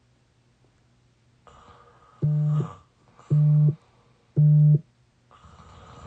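Three short, identical electronic beeps about a second apart, each a little louder than the last, like a phone or alarm tone. Near the end a sleeping person's noisy breath begins.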